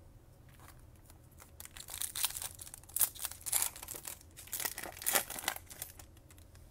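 A Topps Chrome baseball card pack's foil wrapper being torn open and crinkled by hand, in a run of sharp, irregular crackles that starts about a second and a half in.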